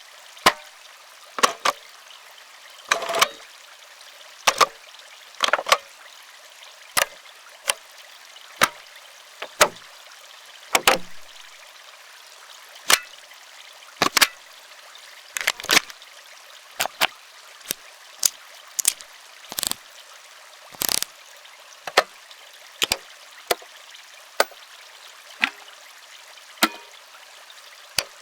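A series of close-up mechanical clicks from analog buttons and switches being pressed and toggled on and off, one or two sharp clicks at a time with short gaps between, over a faint steady hiss.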